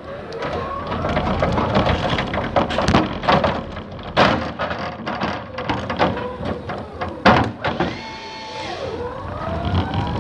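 Electric motor of a warehouse truck whining, its pitch rising and falling as it speeds up and slows, over rattling and sharp knocks.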